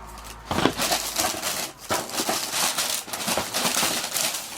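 Packaging being handled while a pair of boots is unwrapped from a shoebox: irregular rustling and crinkling, with a few small knocks.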